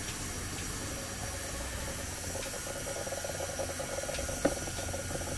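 Coolant gurgling and hissing in the expansion tank of a warm Honda VFR, over the steady hum of its idling engine, with one sharp click about four and a half seconds in. The bubbling is air coming through the cooling system rather than the coolant boiling, though the level in the tank is up.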